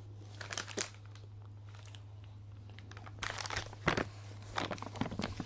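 Crinkling and rustling of a plastic snack wrapper being handled, thickening from a little after halfway, with a few clicks about half a second in and a steady low hum underneath.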